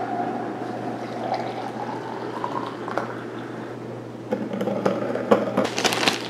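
Water poured from a glass kettle into a glass French press, the pitch of the filling rising over the first few seconds. From about four seconds in, a run of crinkles and clicks as a plastic bread bag is handled.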